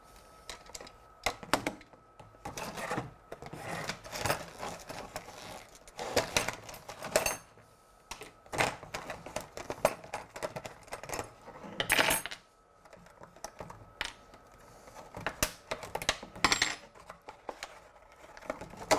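Stiff clear plastic clamshell packaging crackling and clicking in irregular bursts as it is handled and pulled apart, with small metal parts of a hot wire foam cutter (bent rods and nuts) clinking onto the wooden baseboard.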